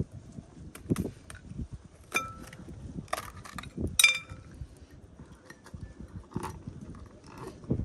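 Glass jar clinking several times as it is handled. The two loudest strikes, about two and four seconds in, ring briefly. Gusty wind rumbles on the microphone underneath.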